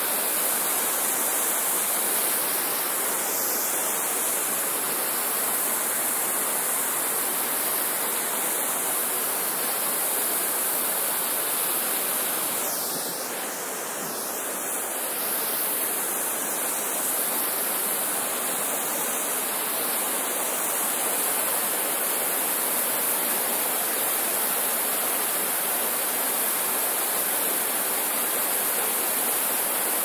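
River water pouring over a low weir and rushing over rocks in a steady rush, easing slightly for a moment about halfway through.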